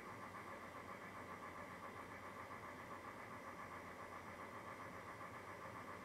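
A faint, steady mechanical hum, like a motor or pump running, unchanged throughout.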